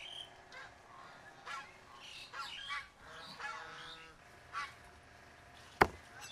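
Birds calling off and on in short, separate calls. Near the end comes a single sharp knock, the loudest sound, from a cleaver blade coming down on a wooden chopping block.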